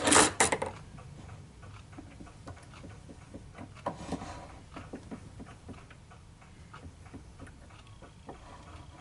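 Metal tools clattering as they are handled at a small bench lathe, then light irregular clicks and ticks of metal on metal, with a louder clink about four seconds in.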